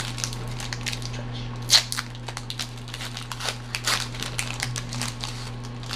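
Foil wrapper of a Pokémon Guardians Rising booster pack crinkling and tearing as it is opened: a run of sharp, irregular crackles, loudest about two seconds in. A steady low hum runs underneath.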